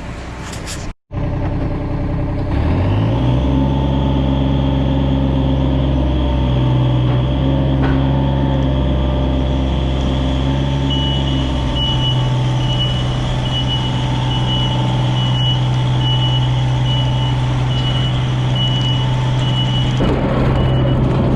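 Komatsu PC27 compact excavator's diesel engine revving up about two seconds in and then running steadily at high revs, with its travel alarm beeping about once a second from halfway through as the machine moves.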